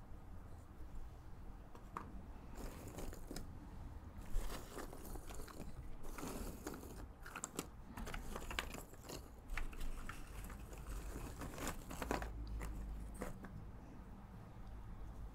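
Fingers sifting through a heap of loose cardboard jigsaw puzzle pieces in a cardboard box, making an irregular crunchy rustle with small clicks as the pieces slide and knock against each other.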